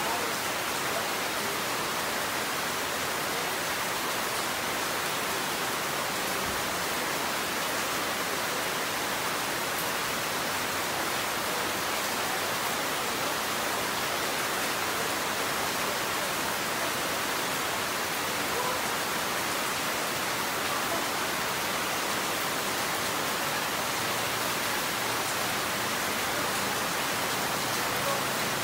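Steady rain falling, an even hiss that holds without a break.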